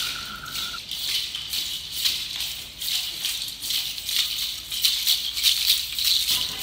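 Handmade hand-held rattle instrument, a cylinder with brass-coloured pieces held by two handles, played in a fast, uneven stream of rattling clicks. A steady whistling tone, carried over from the whirled aerophone, stops about a second in.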